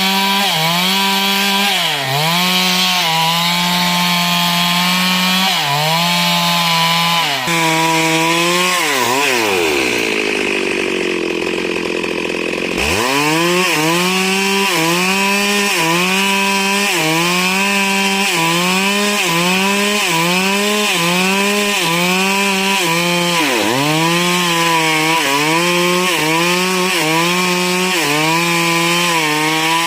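Stihl MS 382 two-stroke chainsaw running at high revs, its pitch dipping briefly every second or two. About eight seconds in the engine falls away towards idle, and at about thirteen seconds it revs back up to full speed.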